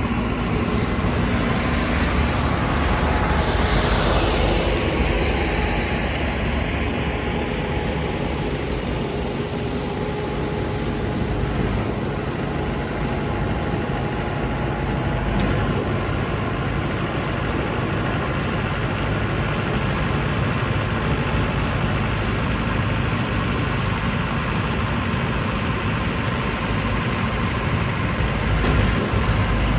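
Crawler-type rice combine harvester running steadily, its engine giving a continuous low rumble with a steady hum. A brief rushing swell comes a few seconds in.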